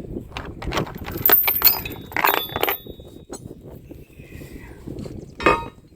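Metal clinking and clanking as anchor chain and a shackle are handled: a run of sharp clinks, some ringing briefly, in the first half, then one sharp knock near the end.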